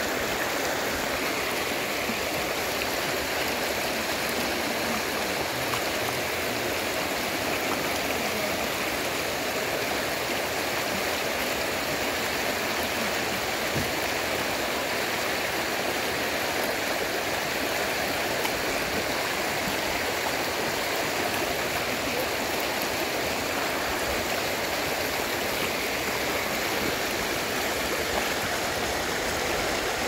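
Running water, a steady unbroken rush with no pauses or changes.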